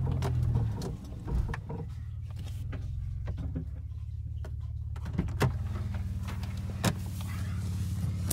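Low steady drone and rumble inside the cabin of an unpowered Ford Explorer being towed across rough grass, louder for the first second, with a few knocks and rattles from the body, the loudest about five and a half seconds in.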